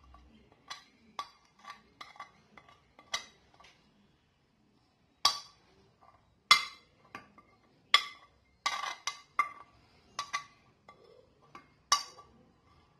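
Steel spoon clinking and tapping against a small glass bowl and a plate as spice powders are scooped and tipped in: a string of irregular sharp clinks, each with a short ring.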